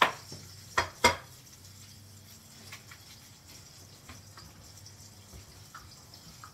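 Cookware clanking three times within the first second or so, sharp metal knocks, followed by faint scattered clicks of handling over a low steady hum.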